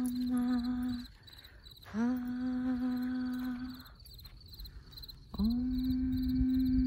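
A voice humming three long notes on the same pitch, each sliding up into the note and held about two seconds, with gaps between. Crickets chirp steadily behind it.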